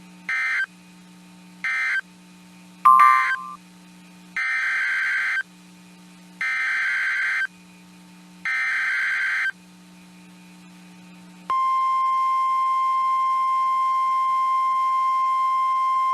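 NOAA Weather Radio SAME data bursts, the screeching digital tones of the Emergency Alert System. Three short bursts come first, then three longer ones of about a second each. About eleven seconds in, the steady 1050 Hz warning alarm tone begins and holds, the signal that a new warning, here a tornado warning, follows.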